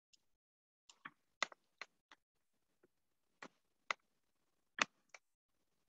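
About ten faint, light clicks at an irregular pace, spread over several seconds.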